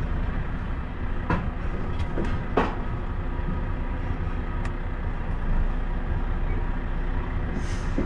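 A truck's diesel engine running at low speed as the truck creeps along the low-floor wagons of a Rola piggyback train. There are a few short knocks in the first half.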